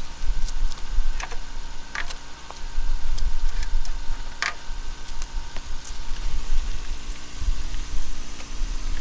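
A vehicle engine running with a low rumble and a steady hum, with several sharp clicks or knocks, the clearest about two seconds in and about four and a half seconds in.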